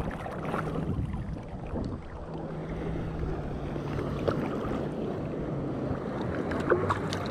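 Small surf waves sloshing and splashing around a wet action camera held at the waterline, with wind buffeting the microphone. A low steady hum sits under the water noise from about two seconds in, and there are a few sharp splash clicks near the end.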